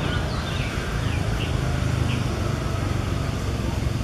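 Steady low rumble of outdoor background noise, with a run of short, high, falling animal chirps in the first two seconds.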